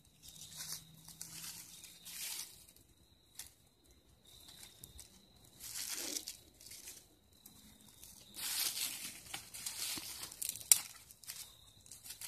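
Dry leaves and twigs rustling and crackling as a small kindling fire is worked by hand to keep it burning, in irregular quiet bursts, with one sharp snap near the end.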